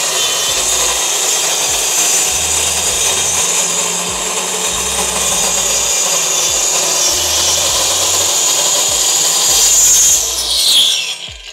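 Endico SLOK30 5-inch, 1350 W circular saw running steadily while cutting through plywood along its straight edge guide. Near the end its pitch falls as the blade winds down.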